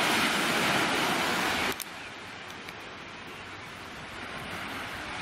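Small waves breaking and washing up a sandy beach, a steady wash of surf. It is loud at first and drops suddenly to a quieter wash after about a second and a half.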